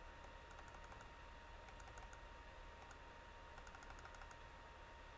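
Near silence: faint computer keyboard clicking in four or so short quick runs, over a low steady hum and a thin steady tone.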